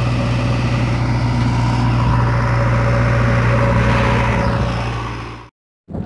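A motor vehicle's engine running steadily with a strong low hum, fading out near the end and cutting to a moment of dead silence.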